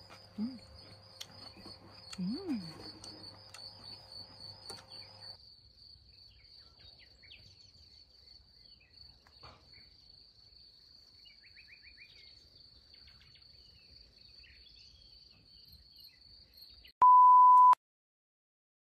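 Insects chirring steadily at a high pitch, with a few light clicks of chopsticks in a pan on a portable gas stove in the first few seconds. Near the end the chirring cuts off and a loud electronic beep sounds once, a steady tone about half a second long.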